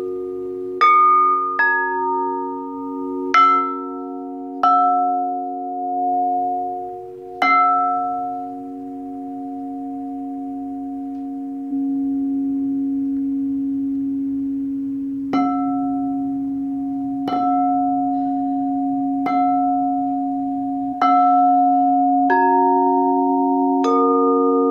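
Several quartz crystal singing bowls ringing together at different pitches, struck one after another about eleven times, each strike adding a bright attack over the long, steady hum of the bowls. The strikes pause for several seconds in the middle while the tones sustain.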